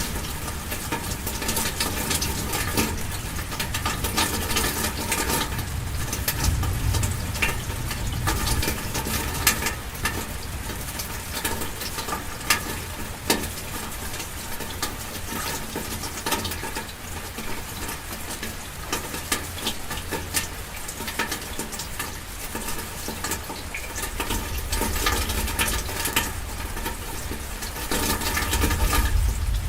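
Rain falling on a car, heard from inside: a dense, steady patter of many small drops hitting the roof and glass, with a low rumble underneath.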